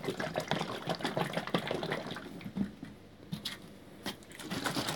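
Liquid plant nutrient sloshing and splashing in a bottle as it is handled, in quick irregular bursts. It eases off past the middle, where there are two sharp clicks, and picks up again near the end.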